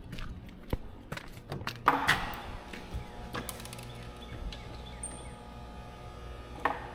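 Handling noise: scattered clicks and knocks, with a louder rustling clatter about two seconds in, over a steady mechanical hum.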